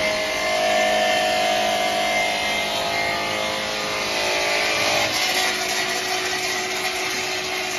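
Reignmac RMS400 multi-rip saw running steadily, a continuous machine drone with a whine that drops away about five seconds in as boards are fed into it.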